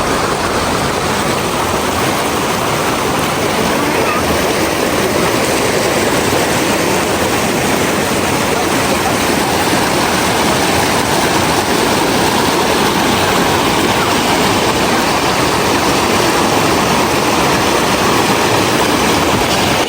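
River water rushing over rocks: a steady, loud, unbroken rush.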